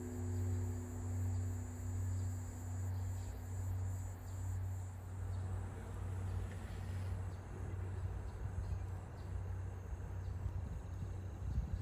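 Long, slowly dying hum of a large Korean Buddhist temple bell (beomjong) after a stroke. Its deep tone swells and fades about once a second. A steady high chirring of crickets runs under it and fades out about halfway through.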